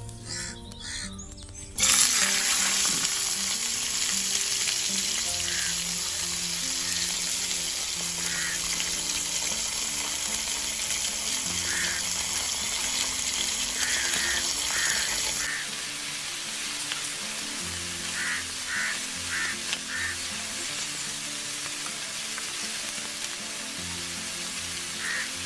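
Fish-roe batter dropped into hot oil in a steel kadai, setting off a sudden sizzle about two seconds in that carries on as the fritters fry, with background music underneath.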